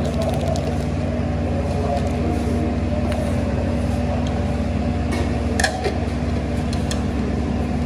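Steady machine hum with several fixed low tones. A few sharp clinks of ceramic bowls and lids being handled come about five to seven seconds in.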